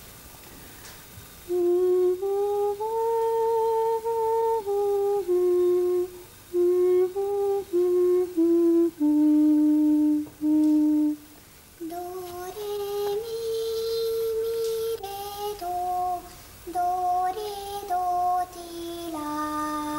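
A woman humming a short melody in clear, separately held notes that fall to its lowest notes at the end. After a short pause, a child sings the tune back, a little quieter.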